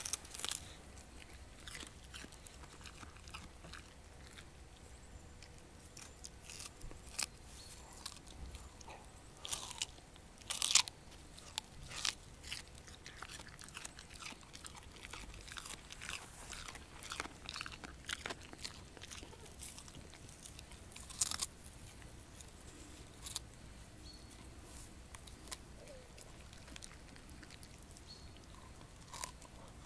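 Siberian husky chewing a raw radish: irregular crisp crunches and bites with short pauses between them, the loudest crunches about a third and about two-thirds of the way through.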